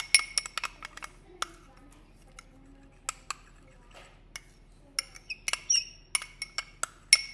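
Metal spoon stirring a thick, creamy lotion and shaving-cream mixture in a bowl: irregular clinks and taps of the spoon against the bowl, a few ringing briefly, sparse at first and coming thick and fast in the last couple of seconds.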